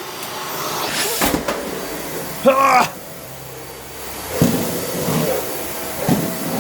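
Dyson Ball Animal upright vacuum cleaner running with a steady hiss, with a few knocks as it is pushed about. A loud "Ah!" exclamation comes about halfway through, and the vacuum noise drops for about a second after it.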